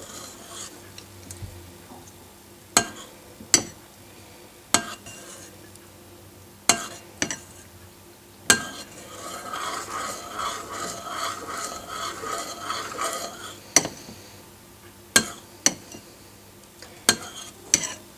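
A spoon stirring honey into still-warm cough syrup, clinking sharply against the side of the container about a dozen times at irregular intervals. Between the clinks there is a longer stretch of swishing and scraping as the spoon goes round.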